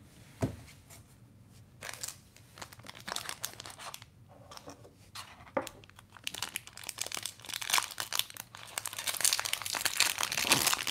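Foil wrapper of a Topps baseball card pack crinkling as it is handled and torn open, with a sharp knock about half a second in. The crinkling grows denser and loudest near the end as the wrapper is ripped.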